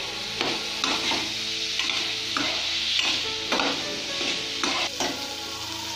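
Baby potatoes and ground spices sizzling in oil in a frying pan, with a spatula scraping and stirring against the pan about once a second at uneven intervals.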